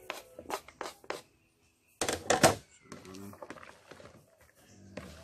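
Light clicks and knocks of seasonings being dropped in with the fish, then a loud brief rustling handling noise about two seconds in. A short animal call follows just after.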